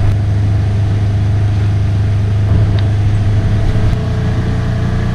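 A motor vehicle's engine running at a steady speed while driving, a constant low hum with a slight dip about four seconds in.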